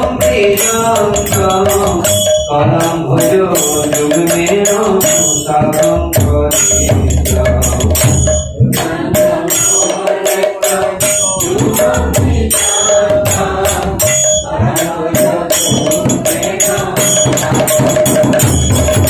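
Hindu devotional kirtan music: singing voices over jangling hand percussion and drum keeping a steady, fast dance rhythm.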